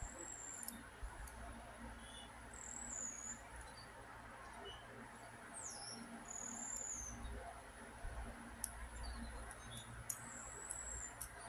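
Short, high, wavering squeaks from a LEGO Technic plastic axle rubbing as it is slid through the puzzle's pieces, about five of them, with a few faint plastic clicks over a low steady hum.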